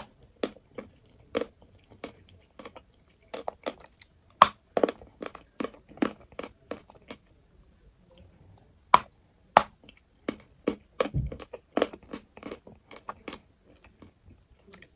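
Hard chalk being bitten and chewed close to a microphone: a long run of sharp, crisp crunches, the loudest about four and nine seconds in. A dull low bump comes about eleven seconds in.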